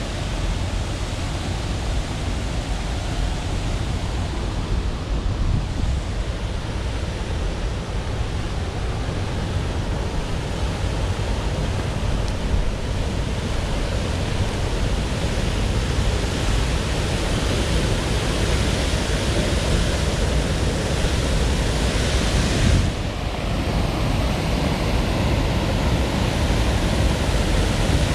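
Steady rushing water, a continuous hiss with a strong low rumble underneath, briefly dipping about 23 seconds in.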